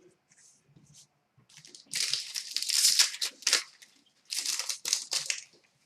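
Crinkling of trading-card packaging in two bursts, about two seconds in and again about four seconds in.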